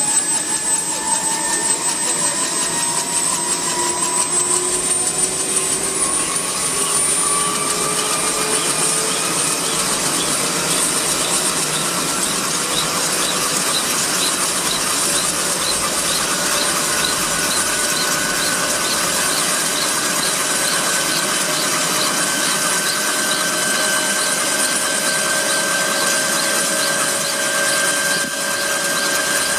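Intermeshing-rotor helicopter running up on the ground. Its turbine whines climb steadily in pitch for about the first half, then hold level as the rotors come up to speed, with a steady high whine above.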